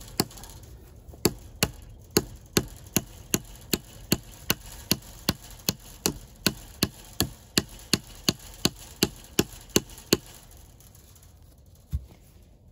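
Hammer driving a 2-inch fence staple into a wooden fence post: a steady run of sharp strikes, about two and a half a second, that stops about ten seconds in. A single thud follows near the end.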